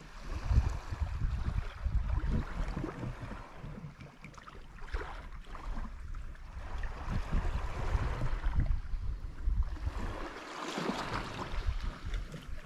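Wind rumbling on the microphone, with waves washing on the shore. It swells louder about five seconds in and again near the end.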